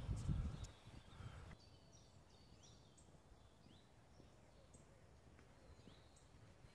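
A low rumbling noise for the first second and a half, then quiet woodland with small birds giving short, high chirps and whistles again and again.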